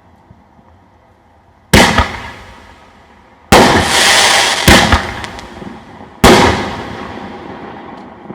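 5-inch aerial firework shells going off: four loud booms a second or two apart, each trailing off, the second followed by about a second of loud rushing noise.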